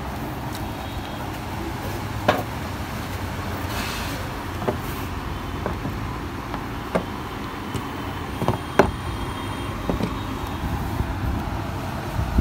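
Handling of a large Pioneer Fiery XB 8000 spinning reel: a handful of sharp clicks and knocks, the loudest about nine seconds in, over a steady low background rumble.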